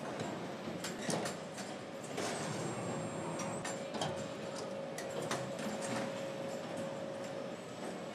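Tractor assembly-line factory floor: scattered sharp metal clicks and knocks of work on the line over a steady machine hum, with a thin steady whine that stops near the end.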